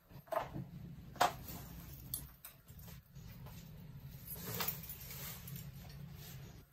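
Clothes being handled and packed into a fabric suitcase: rustling, with a few light knocks against the case, the sharpest about a second in, over a steady low hum.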